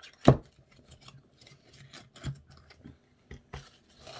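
Small clicks and taps from a lipstick case being handled, with one sharp click just after the start that is the loudest sound. Near the end comes a rustle of packaging as hands go into the box.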